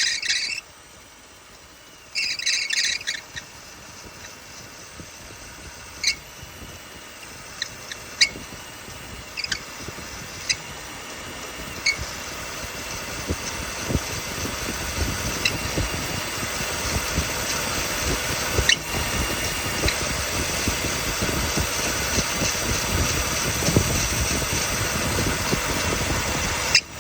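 Loose engine accessory belt squealing: one high squeal cuts off about half a second in and another comes about two seconds in. After that the engine runs with a steady high whine and hiss that grows louder, with occasional sharp ticks.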